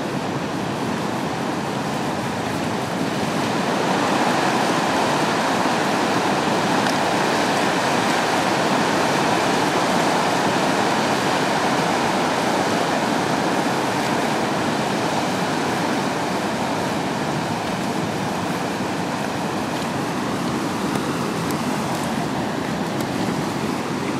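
Whitewater of Tanner Rapids on the Colorado River rushing steadily, a little louder from about four seconds in until past the middle.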